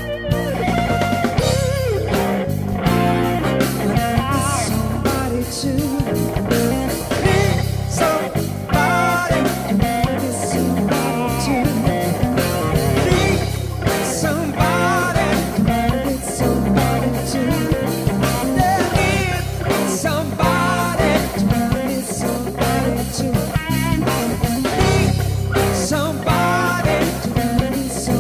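Background rock music with electric guitar and a singing voice over a steady beat.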